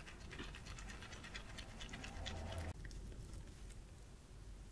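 Silicone spatula pressing and scraping wet Earl Grey tea leaves against a fine stainless-steel mesh sieve: a soft, crackly scraping that stops abruptly about two-thirds of the way through, followed by fainter scratching.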